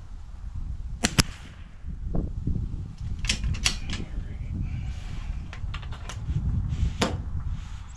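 Sharp gunshot cracks on a rifle range: a quick pair about a second in, two more a few seconds later and another near the end, over a steady rumble of wind on the microphone.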